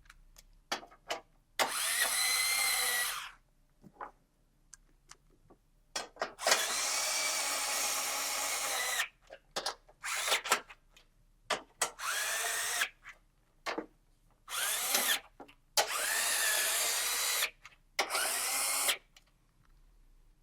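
Cordless power driver running in the chassis brace bolts: about six short runs of motor whine, each rising in pitch as it spins up, with light metallic clicks of sockets and bolts being handled between them.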